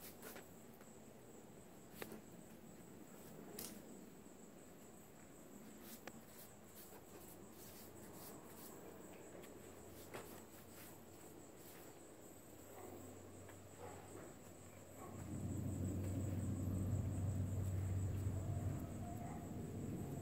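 Faint ambience with a steady, high-pitched insect trill throughout and scattered short clicks and taps. About three-quarters of the way through, a louder low rumble sets in.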